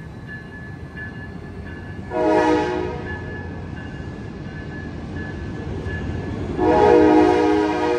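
Departing Amtrak Capitol Corridor passenger train rumbling past, its lead Siemens Charger locomotive sounding a chord horn: a short blast about two seconds in, then a longer blast from about seven seconds in that carries on.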